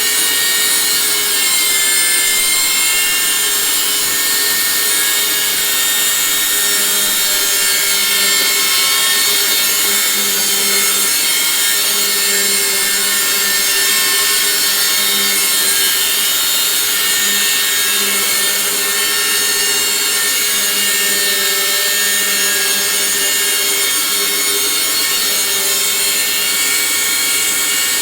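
Household vacuum cleaner running steadily with a very loud, high-pitched whine over its motor noise, a fault noise the owner cannot explain.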